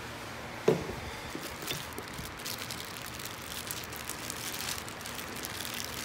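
A sharp knock under a second in, then the uneven crinkling rustle of a clear plastic bag being handled and opened, with chrome riser parts inside it.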